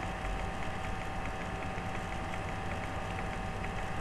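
Steady background hum and hiss of the recording setup, with a constant mid-pitched tone and a faint, even ticking about four times a second.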